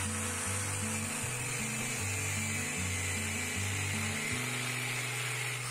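Angle grinder with an abrasive cutoff disc cutting through leaf spring steel, a steady high-pitched grinding whine. Background music with a stepped bass line plays underneath.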